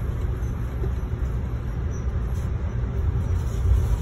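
Steady low rumble inside a moving passenger rail car: the train's wheels running on the rails and the car's own running noise.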